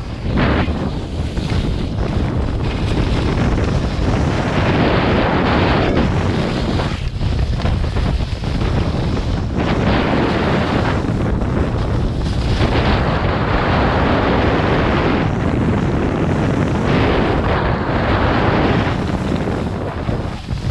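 Wind rushing over the camera's microphone while skiing fast downhill, mixed with skis hissing and scraping over packed, groomed snow. It is a loud, steady rush that eases briefly a few times.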